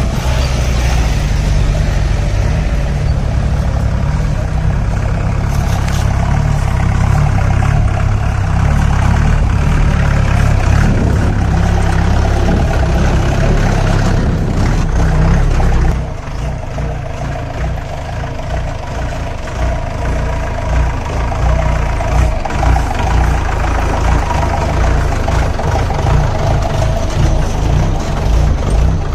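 4x4 jeep engine running while the jeep is driven, a steady low drone. About halfway through it drops a little and becomes more uneven.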